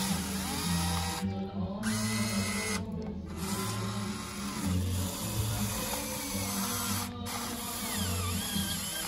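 Background music with the whirring of a radio-controlled model Caterpillar 336D excavator's small electric motor, which changes pitch as the arm and bucket move.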